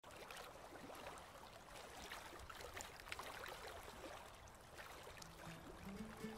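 Faint trickling and lapping water with small scattered ticks. Background music fades in about five seconds in.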